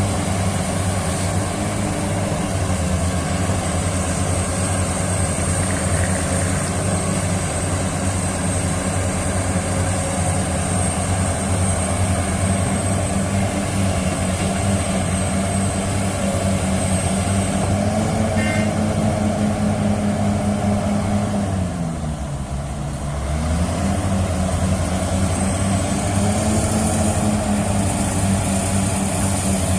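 Heavy diesel engines of a Hitachi Zaxis 870LCH excavator and a Volvo A40G articulated dump truck running steadily during loading. About two-thirds of the way through, the engine note drops in pitch and quiets briefly, then picks back up.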